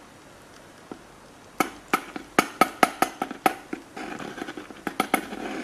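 Handling sounds of a tube of Dow Corning heat sink compound worked against an insulator on an aluminium heat sink: a quick run of about ten sharp clicking taps, starting about a second and a half in, then a softer scraping rub as the nozzle spreads the paste.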